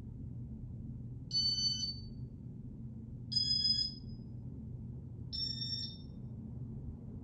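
Three short electronic beeps, about two seconds apart and each a little higher in pitch, from a 1995 Casablanca Panama ceiling fan's Intelli-Touch control. Under them the fan motor runs with a steady low hum.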